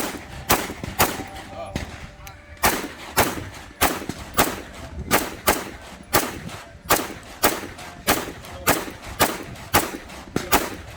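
Rapid 9mm Glock pistol fire, about two shots a second with a short ring after each. About two seconds in there is a brief pause, then the shots run steadily on.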